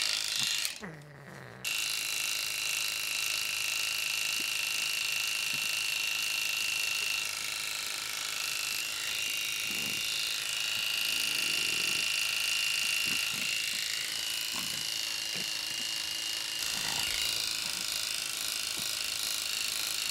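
Electric pet clippers running steadily as they shave mats from a Persian cat's coat: a constant buzz with a high whine. About a second in, the sound falls away for under a second and then resumes.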